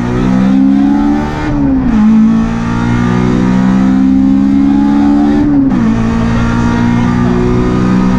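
Honda Civic 1.6 rally car's engine heard from inside the cabin, accelerating hard through the gears: the engine note climbs, drops at an upshift about one and a half seconds in, climbs again and drops at a second upshift after about five and a half seconds.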